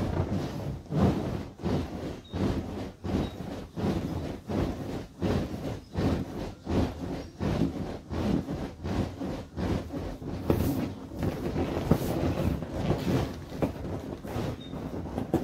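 Inflatable vinyl ride-on wolf toy being bounced on, giving an even run of thumps at about two a second.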